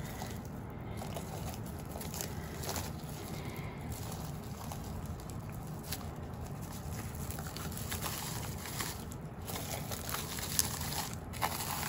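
Soft crinkling and a few light taps of plastic bubble wrap being handled and pressed onto wet acrylic paint, over steady background noise.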